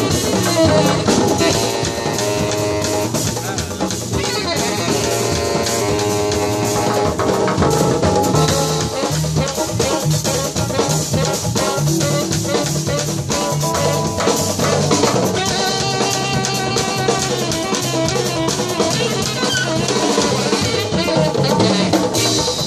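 Live jazz combo playing: saxophone and piano over a drum kit and Uruguayan candombe hand drums (tambores repique, piano and chico) keeping a steady rhythm.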